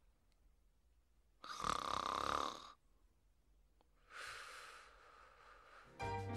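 Newfoundland dog snoring: one long rasping breath about a second and a half in, then a softer one a couple of seconds later. Music starts near the end.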